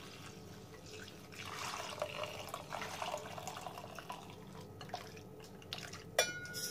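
Whey splashing and trickling as curdled milk is poured from a steel pot into a muslin cloth over a strainer, heaviest for a couple of seconds about a second and a half in, then thinning to a trickle. A sharp metallic clink comes near the end.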